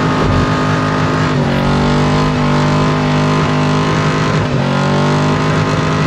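Pickup truck engine held at high revs during a burnout, its rear tyres spinning in smoke. The revs dip briefly about a second and a half in and again about four and a half seconds in, climbing back each time.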